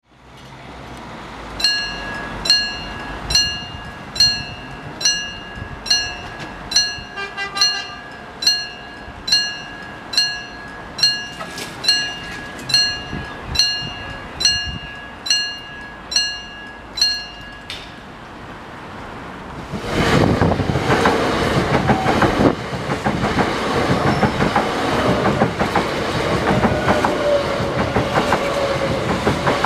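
A mechanical level-crossing bell rings with evenly spaced strikes, a little more than one a second, and stops about eighteen seconds in. A couple of seconds later an electric multiple-unit train passes loudly over the crossing, its wheels clattering on the rails.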